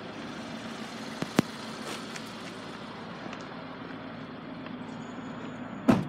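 Steady outdoor vehicle and traffic hum. A sharp click comes about a second and a half in, and a louder knock comes just before the end.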